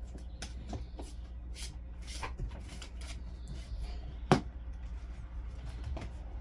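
Puppies scrabbling and scuffling about on a rug and blanket, with scattered soft clicks and rustles and one sharp knock about four seconds in, over a steady low hum.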